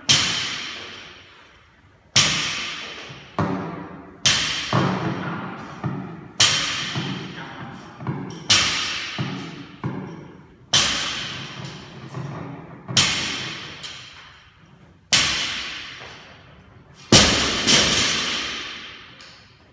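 Barbell loaded with bumper plates dropped repeatedly onto a rubber gym floor, about every two seconds, ten heavy thuds in all. Each thud is followed by a long echoing decay. The loudest drop comes near the end.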